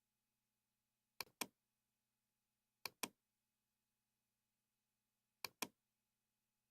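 Three computer mouse clicks a couple of seconds apart, each a sharp double click of button press and release, with near silence between them.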